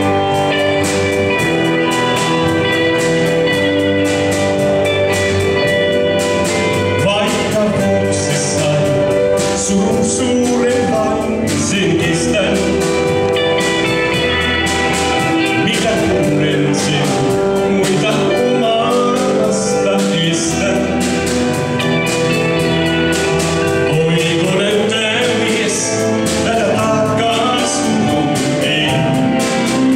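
A live band playing: electric guitars, keyboard and drums, with a man singing the melody.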